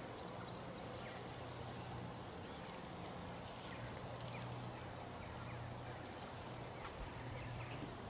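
Faint ambience: a steady low hum that drops out now and then, with scattered short bird chirps and a light hiss.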